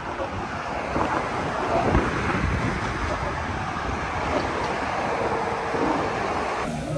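Wind blowing across the microphone: a steady rush of noise, heaviest in the low end.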